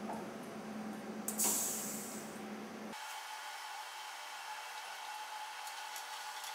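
Humanoid robot ARMAR-III working at an open dishwasher: a steady low machine hum with a short, loud hiss about a second and a half in. From about three seconds the hum drops out, leaving a thin hiss with a faint steady whine.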